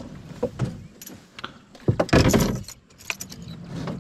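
Fishing rods and reels being picked up and handled in a small boat: a run of light clicks, knocks and rattles, loudest and busiest about two seconds in.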